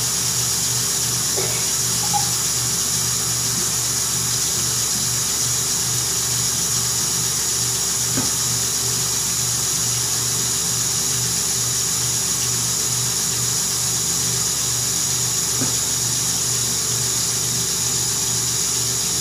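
Tap water running steadily to fill a bath, a constant rushing with a low hum underneath.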